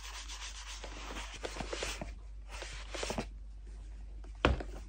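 Fleece buffing mitt rubbed briskly over a leather boot and the edge of its sole, the rubbing stopping about two seconds in; a few light knocks follow, then a single sharp thump near the end.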